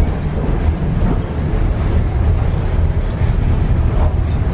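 Steady low rumble of a passenger train in motion, heard from inside the carriage.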